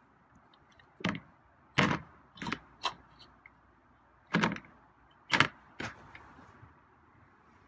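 A series of hard knocks and clatters, about seven in five seconds, as the feeding balls are lifted out of the cat's food bowl and set down.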